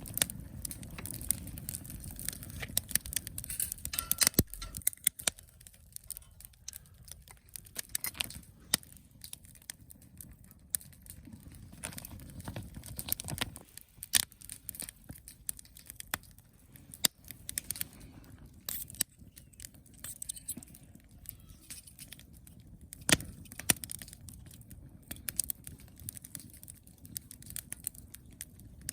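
Camp cooking handling sounds: scattered sharp clicks and clinks of metal utensils, with some crackling, over a low steady rumble.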